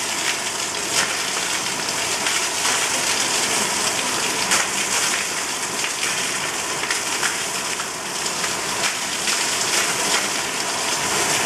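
Heavy rain pouring steadily onto flooded asphalt, splashing into standing water, with a dense even hiss and scattered ticks of nearer drops.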